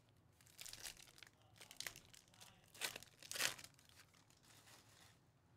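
Plastic-foil trading-card pack wrapper being torn open and crinkled as the cards are slid out: a few short, quiet crinkles and tears, the loudest about three seconds in.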